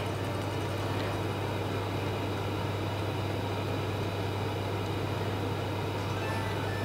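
Induction cooktop running on low heat under an oiled frying pan: a steady low hum with an even fan-like whir.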